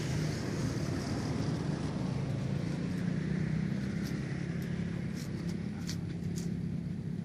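Steady low hum of an unseen engine running. A few faint high clicks come between about four and six and a half seconds in.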